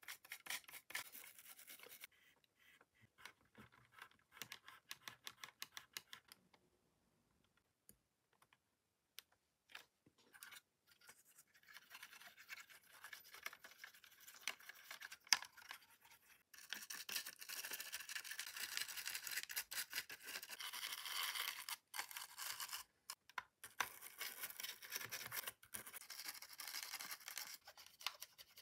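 A toothbrush scrubbing the inside of an opened Sony WM-BF44 Walkman cassette player, a dry scratching of quick back-and-forth strokes. It comes in short bursts with pauses at first, and becomes steady, continuous scrubbing about halfway through.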